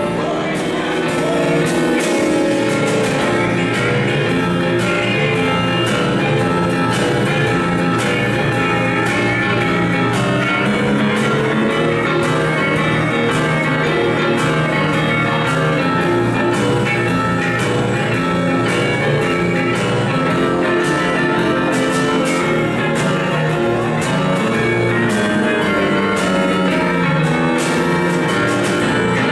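Live band playing an instrumental passage: electric guitar over a drum kit and electric keyboard, with regular cymbal and snare hits keeping the beat.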